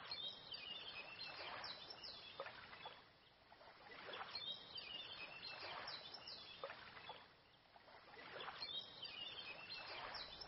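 Oars of an Adirondack guideboat pulling through the water: a faint swish that swells and fades about every four seconds, with small birds chirping.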